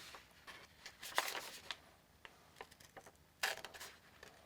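Gerber Kettlebell folding knife's blade slicing into a sheet of paper, with paper rustling in two short bursts, about a second in and again near the end: a paper-cutting sharpness test.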